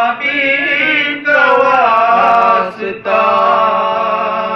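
Unaccompanied chanting of an Urdu munajat (devotional supplication), drawn out in long held, wavering notes. It comes in three phrases, with short breaks about a second in and about three seconds in.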